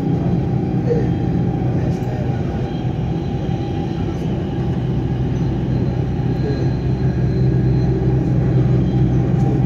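Inside a Dubai Metro train carriage running at speed: the steady rumble of the train's wheels on the rails and its running gear, growing slightly louder near the end.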